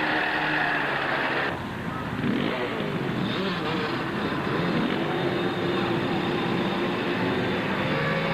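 Quad (ATV) engines running, steady at first, then rising and falling in pitch as they rev; the sound breaks off abruptly about a second and a half in and comes back changed.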